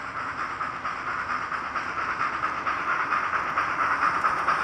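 Sound decoder (ESU LokSound DCC) in an N scale brass steam locomotive playing fast, even steam exhaust chuffs with hiss through its small onboard speaker, growing louder as the locomotive approaches.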